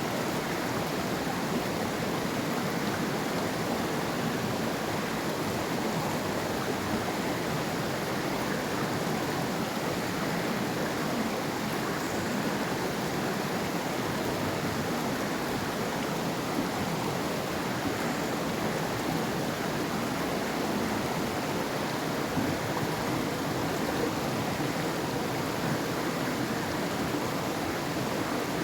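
River water rushing steadily over rocks: an even, unbroken flowing sound.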